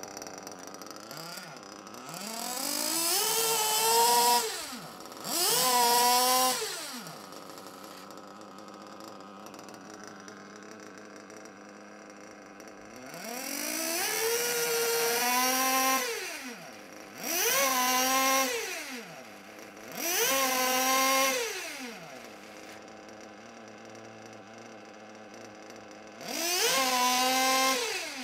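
Small two-stroke nitro RC car engine idling and revved up six times. Each time its pitch climbs, holds briefly, then drops back to idle, as part of breaking in a new engine.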